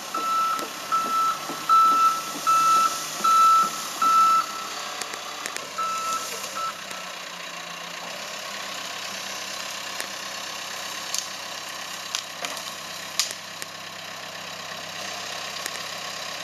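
John Deere 130G excavator's travel alarm beeping about every three-quarters of a second over its running diesel engine, the beeping stopping about six seconds in. The engine then runs on steadily, with a few sharp clicks.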